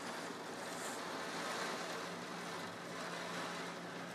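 Heavy rain pouring steadily, an even hiss with a faint low hum underneath.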